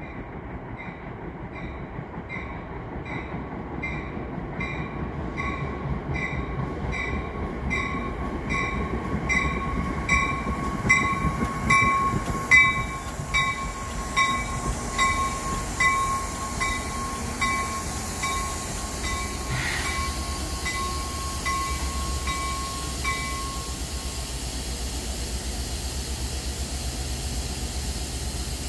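NJ Transit Comet V commuter train pulling into the station and slowing to a stop, its wheels rumbling louder as it passes close and then settling. A bell rings steadily about twice a second and stops about 23 seconds in, leaving a steady hiss and rumble from the standing train.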